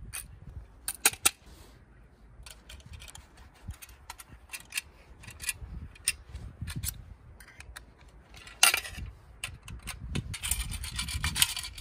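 Screwdriver and small stainless steel bolts clicking and scraping against a stainless tray door, hinge and air-mixer fitting as the bolts are turned in by hand. Scattered light ticks, a sharp clack about a second in and another about two-thirds through, and a quick run of clicks and scraping near the end.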